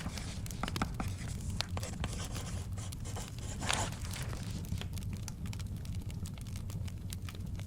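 Study ambience mix: a fire crackling with scattered pops over a low steady rumble, a paper page turned with a swish about three and a half seconds in, and light scratching like a pen taking notes.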